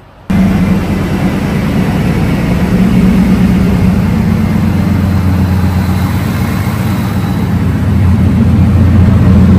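Supercharged 5.4-litre V8 of a 2004 Ford F-150 SVT Lightning idling steadily. It comes in abruptly a fraction of a second in and grows a little louder near the end.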